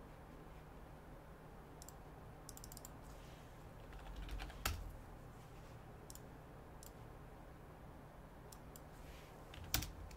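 Scattered light clicks and taps, a few in quick succession, with a louder knock just before halfway and another sharp click near the end, over a faint steady low hum.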